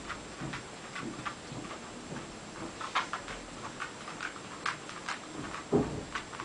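Irregular light clicks and taps of a dog's claws on a hard floor as it walks about, with a dull thump near the end.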